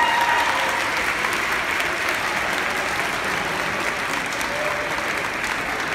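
Crowd of seated students applauding steadily.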